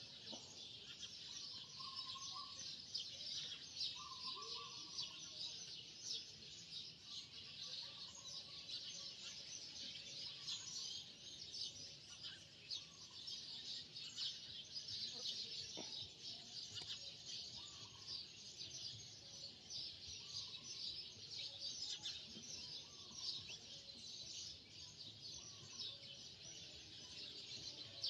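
Steady background chirping of many small birds, a dense high-pitched twittering that never stops, with a few fainter lower calls now and then.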